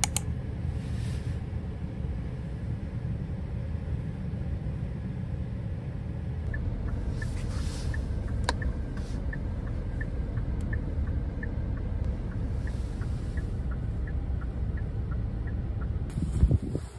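Car running on the road, heard from inside the cabin: a steady low road and engine rumble. A run of light, regular ticks, about two to three a second, goes on for several seconds in the middle, and there is a short bump near the end.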